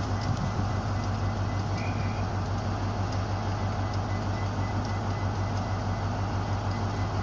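Class 43 HST power car's diesel engine idling at a standstill: a steady low hum.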